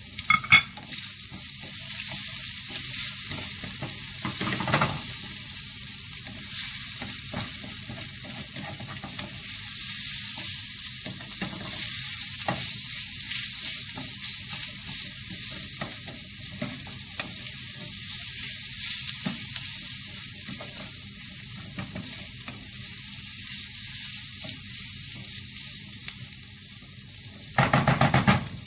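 Kimchi fried rice sizzling in a hot pan while it is stirred, with a steady frying hiss and scattered scrapes and clicks of a utensil against the pan. There is a loud knock just after the start, another about five seconds in, and a quick run of about seven knocks near the end.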